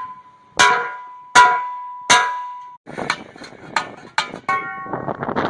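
Metal struck on steel, likely hammer blows: three hard, ringing strikes about three-quarters of a second apart, then a quicker run of lighter knocks and clanks.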